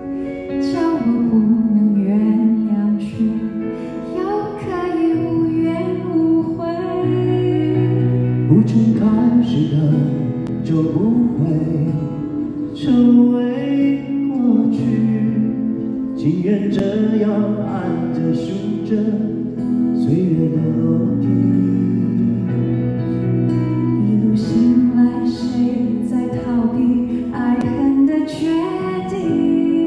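A live pop ballad: a singing voice carries the melody over soft, steady instrumental accompaniment.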